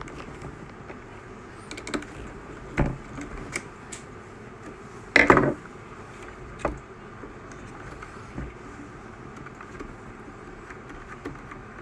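Scattered clicks and knocks of small tools and plastic and metal parts being handled while a nut on an RC truck's slipper clutch and spur gear is run down. The loudest knock comes about five seconds in.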